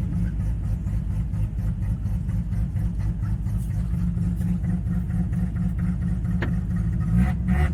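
Bridgeported Mazda 13B rotary engine running steadily with a rapid pulsing exhaust note, growing a little louder near the end.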